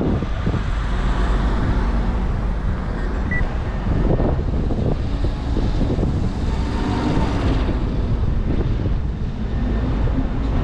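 City street traffic noise: a steady low rumble of car engines and tyres going by, with one short high beep about three seconds in.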